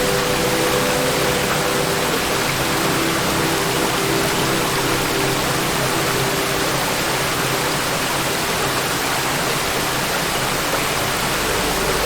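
Waterfall: water falling and rushing in a steady, even roar.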